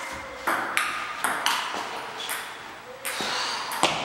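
Table tennis rally: a ping pong ball clicking back and forth off paddles and a painted wooden table, a few hits a second, each with a short echo off the hall's hard walls and floor. A sharp knock, the loudest, comes near the end as the point ends.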